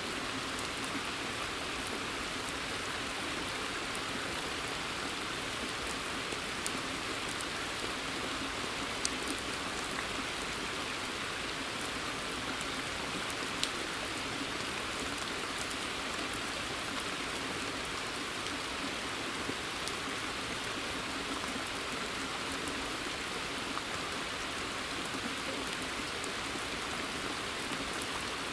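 Steady rain falling in a forest, an even hiss with scattered single drops ticking a little louder now and then.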